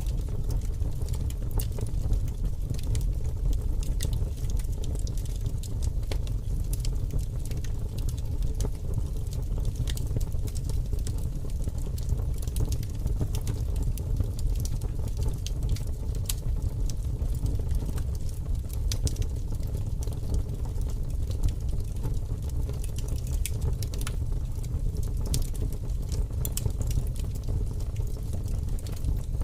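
Wood fire burning in a fireplace: a steady low rumble of the flames with many small crackles and pops scattered through it.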